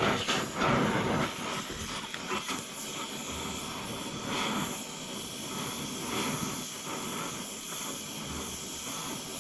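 Torch flame hissing steadily as it heats the cast-iron cylinder head around a rusted exhaust-manifold bolt, to expand the casting and free the threads. A few louder knocks come in the first second or so.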